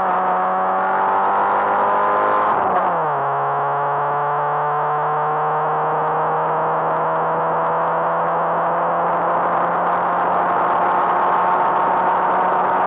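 Car engine accelerating, heard from inside the cabin: its pitch climbs, drops sharply with an upshift about three seconds in, then climbs slowly again down the straight, over a steady hiss of road noise.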